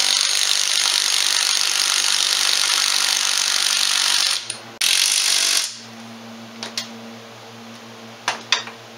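Milwaukee M18 cordless impact driver running a transmission mounting bolt in, with a brief pause about four and a half seconds in, then stopping about a second later. After it stops, a few light clicks of metal being handled.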